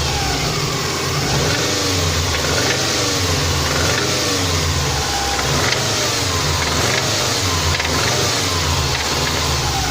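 Subaru EJ20K turbocharged flat-four engine running with repeated light revs, its pitch rising and falling about once a second. It has a knock, the fault it is being run to show.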